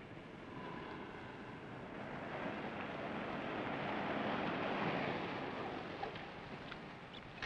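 A vintage car driving up: a rushing engine and tyre noise that grows louder to a peak about two-thirds of the way through, then eases as the car slows, with a sharp click at the very end.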